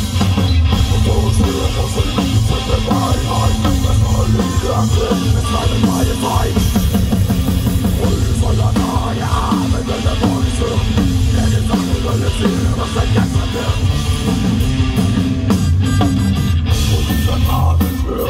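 Folk metal band playing live: electric guitars, bass and drum kit in a loud, continuous riff.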